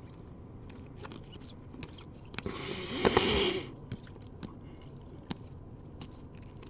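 Trading cards in rigid plastic toploaders being flipped through by hand, with scattered light clicks as the plastic holders knock together and a louder rustling scrape a little after two seconds in that lasts about a second.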